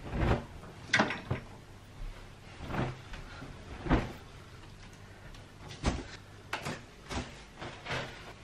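A string of about eight sharp knocks and clicks, spaced irregularly, as household objects are handled and set down, with cupboard-like bangs among them.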